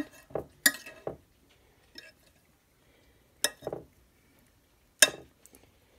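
A few sharp clinks and knocks of kitchen utensils and dishes against a ceramic baking dish, spaced a second or more apart.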